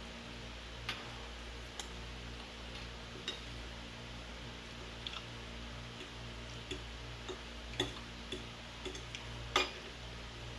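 Knife and fork clicking and scraping against a plate while barbecue chicken is cut, in irregular light clicks with a sharper clink about two-thirds of the way through and another near the end, over a steady low hum.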